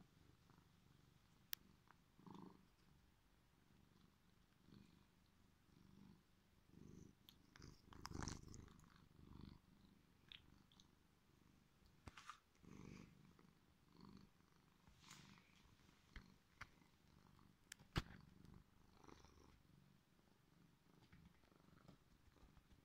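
Domestic cat purring softly and steadily while being petted, with a few sharp clicks and brief rustles now and then.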